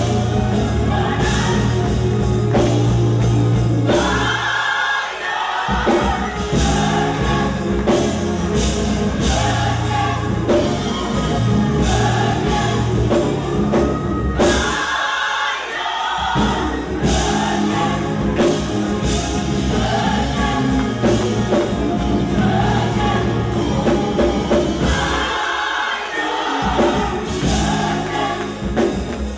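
Gospel choir singing full-voiced over a Yamaha Motif keyboard and a band with a heavy bass line and steady percussion. The bass drops out for a moment three times, about 5, 15 and 25 seconds in.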